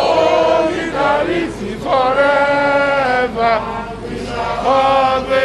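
A crowd of protesters singing a protest chant together, in phrases of long held notes with short breaks between them.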